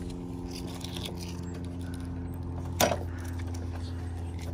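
A steady low mechanical hum with even overtones, and one sharp knock about three seconds in.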